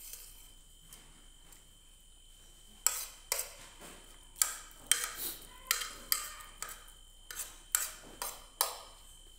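Spoon clinking and scraping against a plate while eating: quiet at first, then from about three seconds in a run of a dozen or so sharp clinks, about two a second.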